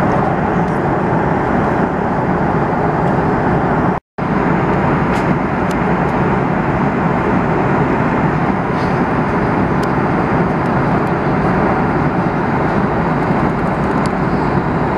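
Steady cabin noise of an airliner in flight: a constant rush of engine and airflow noise, with a split-second dropout to silence about four seconds in.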